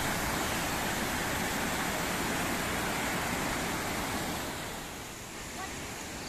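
River water rushing over a low concrete weir: a steady wash of noise that eases a little about five seconds in.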